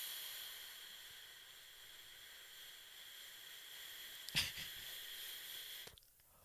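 A man breathing and sniffling hard through his nose close to the microphone, a long hissing breath with a sharp click about four seconds in. It cuts off suddenly about six seconds in.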